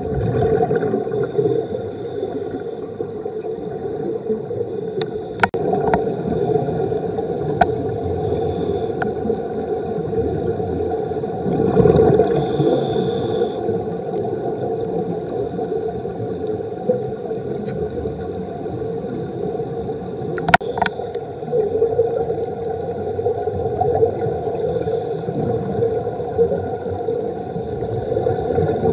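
Underwater sound picked up by a diver's camera: a steady low hum with gurgling and scattered sharp clicks. A scuba regulator breath with bubbles swells up about twelve seconds in.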